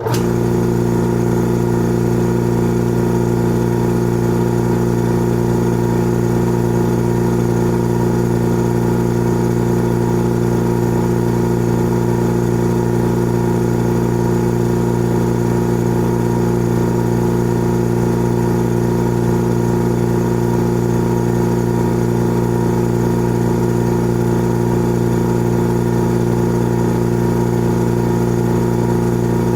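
Old air compressor starting abruptly, then running steadily with an even, unchanging hum.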